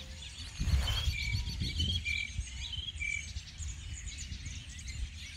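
Birds calling outdoors: short, clear whistled notes repeated every half-second or so, among many quick chirps, over a low rumbling background. There are a couple of dull thumps in the first two seconds.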